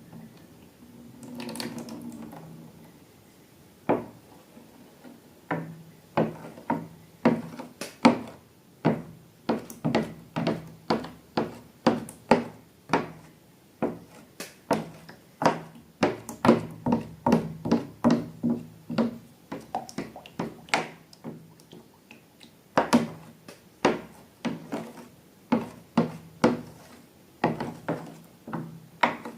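Hands-on slime-making sounds: a long irregular run of sharp clicks and taps, about one to two a second, with a short rustling stretch near the start.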